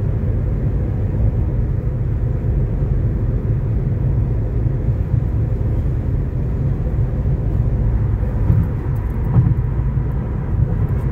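Steady low rumble of road and tyre noise heard inside a car's cabin while cruising at freeway speed.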